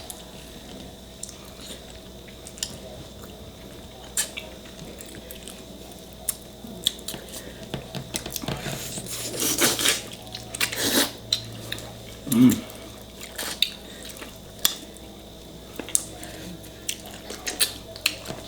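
Close-miked eating of spicy chicken feet and dumplings: wet chewing and mouth sounds with scattered small clicks and taps of tableware. A louder, noisier stretch comes about halfway through.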